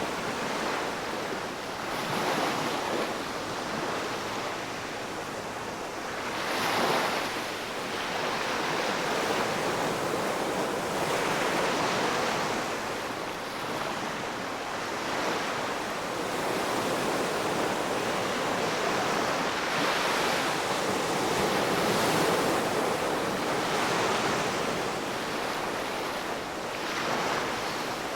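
Ocean waves breaking and washing on the shore, a steady rush of surf that swells and eases every few seconds, with a stronger surge about seven seconds in.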